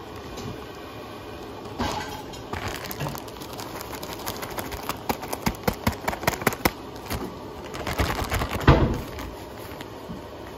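Kitchen handling noise during food preparation: a run of quick clicks and knocks from dishes and utensils, thickest in the middle, with a louder clatter about nine seconds in.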